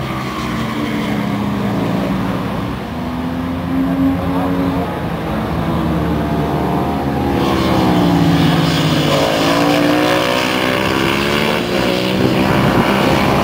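Racing motorcycles' engines at full race pace, at least two bikes heard together, their pitch rising and falling as they change gear. They grow louder about halfway through as they come closer and go past.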